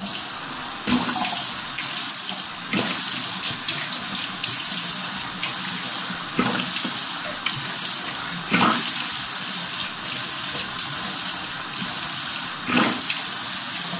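Bathroom sink tap running steadily while water is scooped and splashed by hand onto a face to rinse off a face mask, with an irregular splash every couple of seconds.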